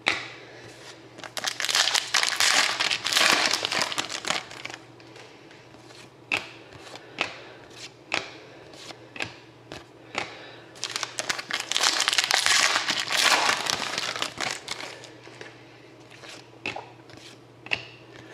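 Panini Contenders card pack wrappers crinkling as they are torn open and handled, in two long bursts about a second and eleven seconds in, with cards clicking and sliding between them.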